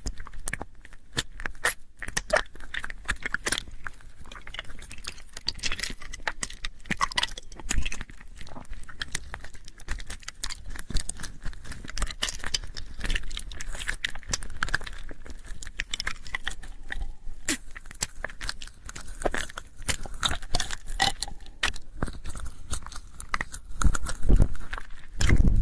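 Close-up mouth sounds into a binaural microphone: a dense, continuous run of wet clicks, smacks and crackles, with a few louder bumps near the end.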